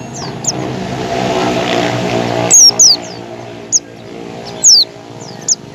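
White-eye (pleci) calling: repeated sharp, high chirps, each a quick downward sweep, the loudest a pair a little past halfway. Under them a steady engine drone builds through the first half and drops away about halfway.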